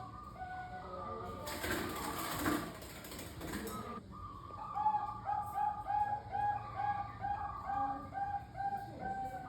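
Zebra doves cooing in short repeated notes, more than one bird overlapping. About a second and a half in, a loud rustling noise covers them for a couple of seconds. Then one dove gives a fast even run of short coos, about two or three a second.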